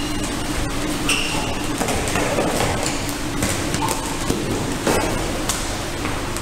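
Gym room sound with a steady hum and scattered knocks and thumps of feet as people run and hop across the floor, plus a short high squeak about a second in.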